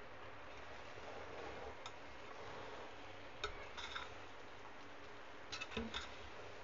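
A metal spoon clinking and scraping against a metal cooking pot as cooked biryani rice is turned over. A few sharp clicks come about a third of the way in, around the middle and near the end, over a faint steady hiss.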